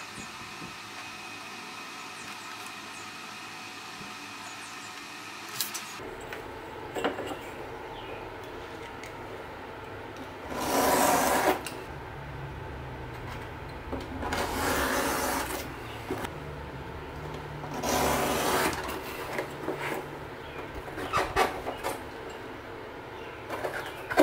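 Three rubbing, rasping strokes of a hand tool on leather, each about a second long, with small clicks and taps between them over a steady background hum.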